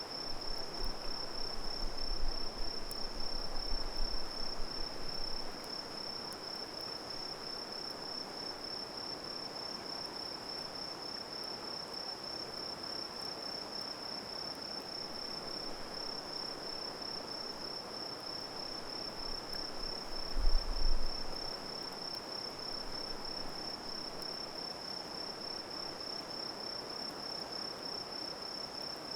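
Crickets singing in a steady, unbroken high trill over a soft background hiss. Low rumbling bumps come during the first few seconds and again briefly about twenty seconds in.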